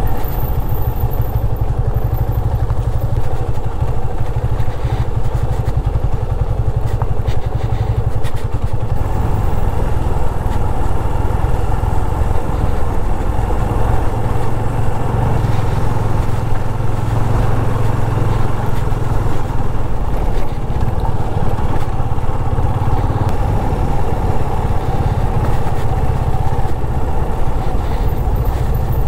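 Yamaha FZ25's single-cylinder engine running steadily at low road speed, heard from the rider's seat as a continuous low rumble.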